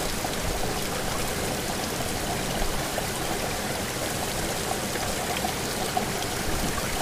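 Steady rushing of flowing water from a mountain river.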